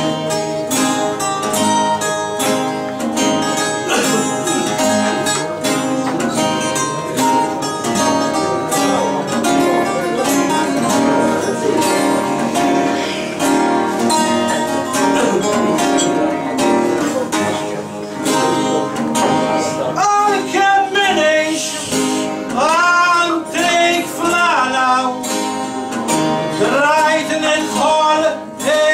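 Three acoustic guitars playing a Maltese għana accompaniment in quick plucked runs. About two-thirds of the way in, a man's voice comes in singing in the għana folk style, with wavering, ornamented held notes over the guitars.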